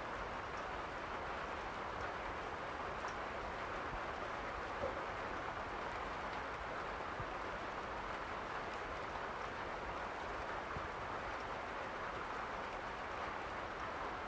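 Steady rain falling, an even hiss with no let-up, with one brief tick about five seconds in.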